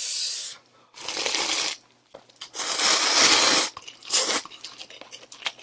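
A person slurping instant noodles and broth from a paper cup: three long slurps, followed near the end by quieter chewing.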